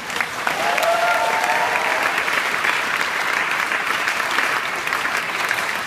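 Audience applauding steadily after a speech ends.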